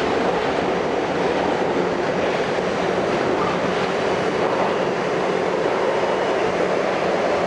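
Inside an R42 subway car running along the track: a steady, loud noise of wheels and running gear with a low hum underneath.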